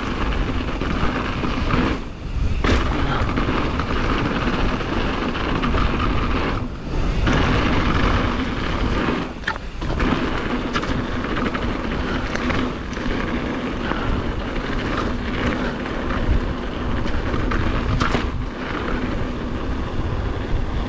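Mountain bike rolling fast down a loose gravel track: tyres crunching over stones and the bike rattling, under heavy wind rumble on the camera's microphone. The noise drops briefly about three times.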